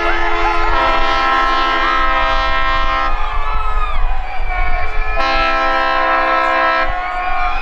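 A boat's horn in the harbour sounds two long blasts of several tones at once, the first about three seconds long and the second nearly two.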